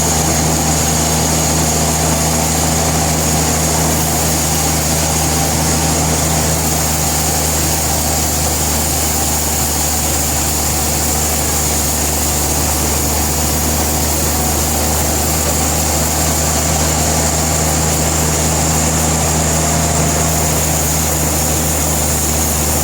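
Sawmill machinery running steadily: a constant low engine drone with a thin high whine above it, unchanging throughout.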